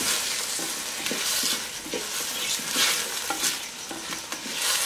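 Chopped nopales and tomatillo sizzling in hot oil in a clay cazuela, stirred with a wooden spoon that scrapes and knocks lightly and repeatedly against the pot.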